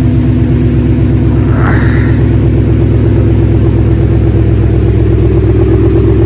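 2018 Ford Mustang GT's 5.0 V8 running steadily through catless long-tube headers and new mufflers, a loud, even exhaust note from the freshly fitted exhaust.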